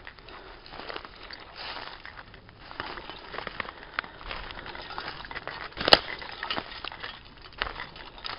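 Footsteps crunching through forest-floor leaf litter and dry twigs, an irregular crackling, with one sharp crack about six seconds in.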